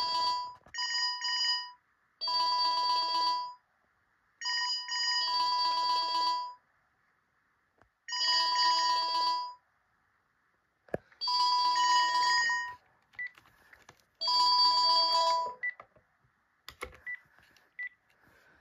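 Panasonic cordless phone handsets sounding their electronic alarm ringtone: bursts of steady beeping tones, each one to two seconds long, about seven times with short pauses between, stopping near the end. A few faint clicks follow as a handset button is pressed.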